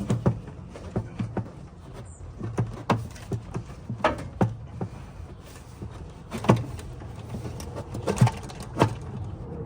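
Irregular clicks and knocks of a plastic coolant recovery tank being handled and pushed into its mounting groove in a pickup's engine bay, with two louder knocks near the end.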